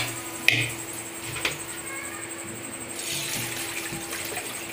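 Water poured into an aluminium pressure cooker holding rice, after a few sharp metal knocks in the first second and a half.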